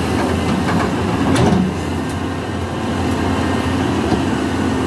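Crawler excavator's diesel engine running steadily as its bucket shifts logs in the mud, with a brief knock about a second and a half in.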